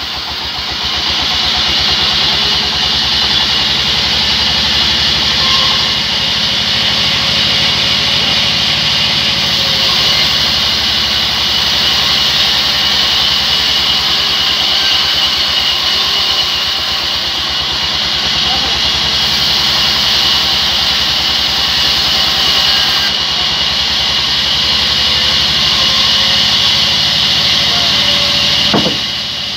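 Large sawmill band saw ripping a heavy log lengthwise: a loud, steady, high hiss of the blade cutting through wood over the constant hum of the saw's drive.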